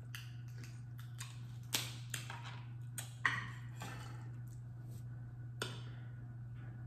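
Quiet eating sounds: a few scattered clicks and smacks as shellfish is picked apart and eaten by hand, over a steady low hum.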